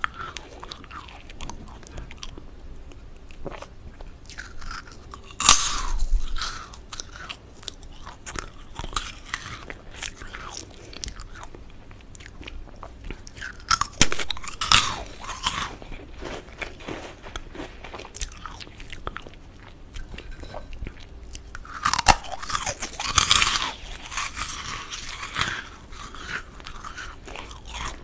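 Crisp meringue cookies crunching as they are bitten and chewed for an ASMR recording: three loud bursts of crunching about eight seconds apart, with softer crackly chewing between them.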